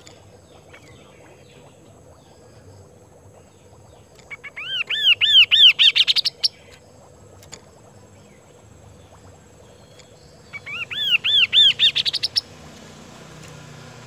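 Chestnut-capped babbler (kaso-kaso) singing two phrases a few seconds apart. Each is a quick run of whistled notes, each note rising and falling, lasting about two seconds and getting louder and higher toward its end.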